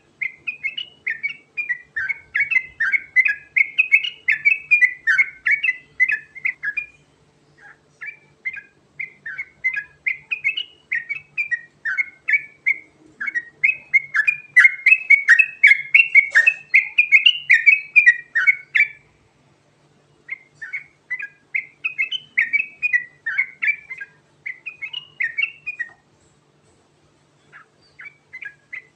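Yellow-vented bulbul (trucukan) singing a fast, continuous rolling song of quick chattering notes, in several long bursts broken by short pauses.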